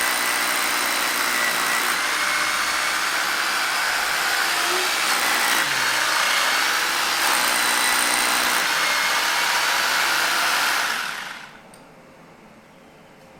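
Electric drill running steadily, boring a hole into the pool structure for a pressure-grouting injection point, its motor pitch wavering under load. It stops about eleven seconds in.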